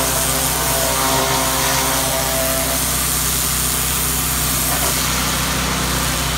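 Pressure washer running steadily, its motor humming under the hiss of the water jet spraying against the boat's hull. A few higher tones in the hum fade out about three seconds in.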